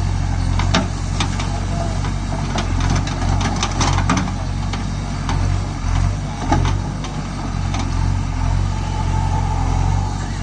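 JCB 3DX backhoe loader's diesel engine running steadily as the backhoe arm digs and swings, with several sharp clanks from the bucket and arm.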